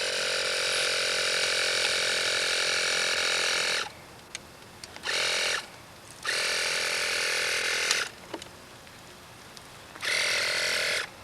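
Pneumatic air springs of a tilting tricycle's active tilt control venting compressed air, in four hissing bursts like air brakes on a garbage truck. The first lasts nearly four seconds, then come a short one and one of almost two seconds, and a last one of about a second near the end.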